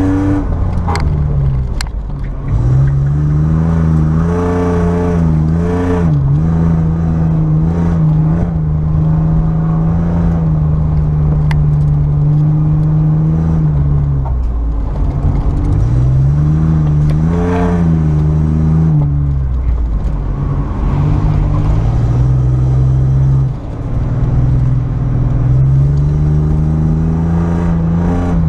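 1997 Chevy S10 SS's 4.3-litre Vortec V6 heard from inside the cab during an autocross run, revving up and falling back over and over as the truck accelerates and lifts off, with a longer high stretch around the middle of the run.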